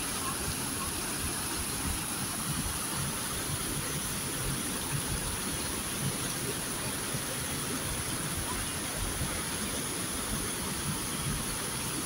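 Mountain stream rushing over boulders in small cascades: a steady, even rush of white water.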